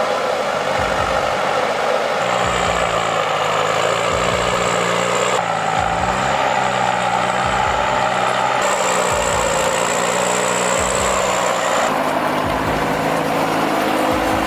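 Heavy log-hauling truck's engine running steadily under load. The sound changes suddenly every three seconds or so.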